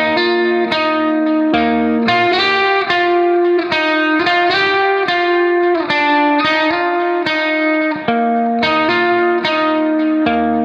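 Background music: a plucked guitar playing a melody in a steady run of notes.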